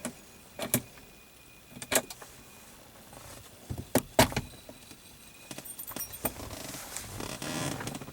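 Sharp clicks and key rattles as a Saab pod key is handled in the car's ignition, with a louder click about 2 s in and another about 4 s in, then a brief whirring near the end.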